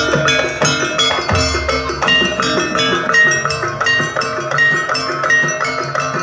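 Javanese gamelan music accompanying a jaranan dance: struck bronze gongs and metal bars play a fast, even pattern of repeated ringing notes.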